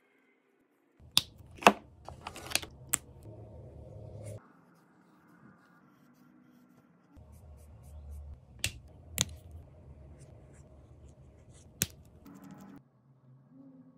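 Sharp plastic clicks from a Copic Sketch marker being handled: four quick ones about a second in, two more around nine seconds, and one near the end, with faint rubbing of fingers on the barrel between them.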